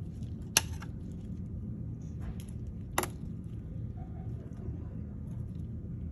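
Two sharp metallic clicks about two and a half seconds apart, metal dissecting instruments knocking against the stainless steel tray, over a steady low hum.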